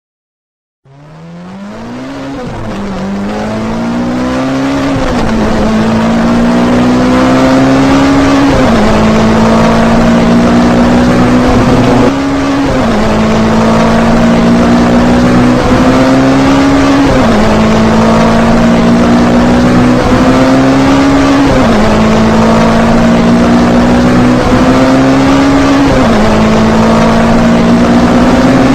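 Race car engine accelerating hard, fading in about a second in. The revs climb steadily, then drop back sharply at each gear change, over and over about every three to four seconds.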